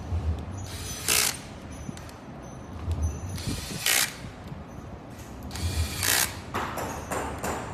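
A small mechanism running in repeated cycles, a burst of whirring or grinding with a low thump about every two and a half to three seconds.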